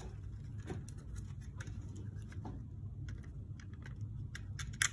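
Light plastic clicks and taps from a Siemens RDF340 room thermostat being handled as its front cover is lifted off the mounting base, with a sharper click near the end.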